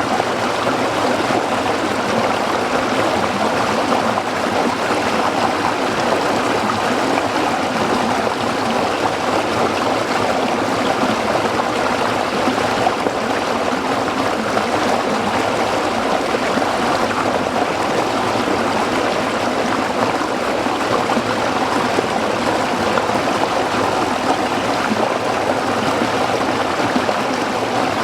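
Stream water flowing and splashing over rocks in a steady, unbroken rush.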